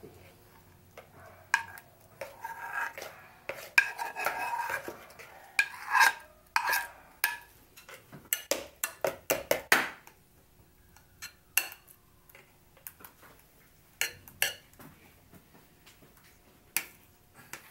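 Spoon scraping and clinking against a frying pan and a glass bowl as caramelised sugar with banana is scraped out of the pan, then a metal spoon stirring and tapping in the glass bowl. The clinks come thick and loud in the first ten seconds, then sparser.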